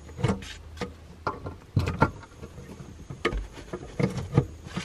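Plastic power-cord plugs being pulled out of and pushed into wall outlets: a scattered series of sharp clicks and knocks, over a low steady hum.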